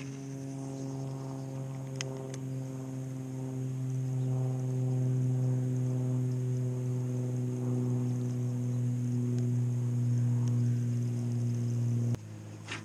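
Background music: one low note held as a steady drone with overtones, swelling slowly and cutting off suddenly near the end. Two faint clicks come about two seconds in.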